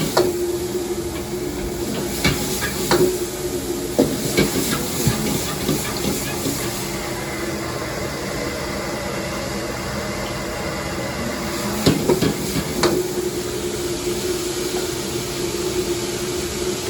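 Commercial kitchen wok station during a stir-fry: a steady hiss and hum of the burner and extractor, with a few sharp metal clanks of a ladle or spatula on the wok. The clanks come in the first few seconds and again about twelve seconds in.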